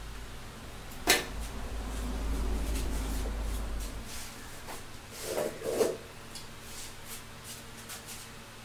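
A plastic wiring connector being pushed together by hand, with a sharp click about a second in. A low rumble follows, then two knocks and a few small ticks as the wiring and parts are handled.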